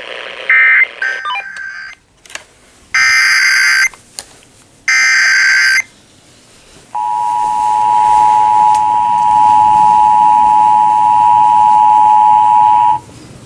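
Emergency Alert System broadcast: a run of SAME header data bursts, harsh screeching bleeps about a second long each, then after a short pause the EAS two-tone attention signal, a steady dual-pitched tone held about six seconds and cut off sharply. It introduces a civil emergency message cancelling a wildfire evacuation warning.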